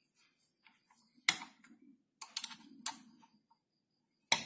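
A few sharp clacks and knocks of hard objects being handled: one about a second in, a quick cluster around two to three seconds in, and another near the end.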